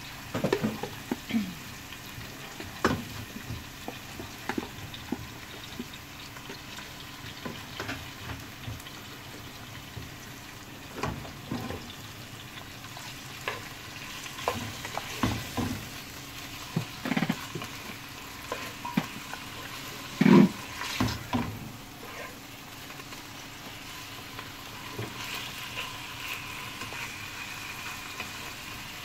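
Sliced onions sizzling in hot oil in a ceramic-coated wok, stirred with a wooden spoon that scrapes and knocks against the pan now and then. There is a louder clatter about two-thirds of the way through.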